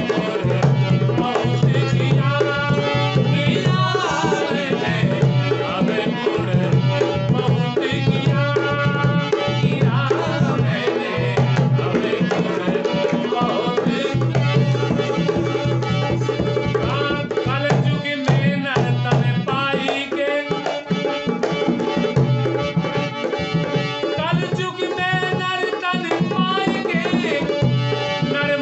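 Indian devotional folk music: a dholak drum beats a steady rhythm under sustained harmonium notes.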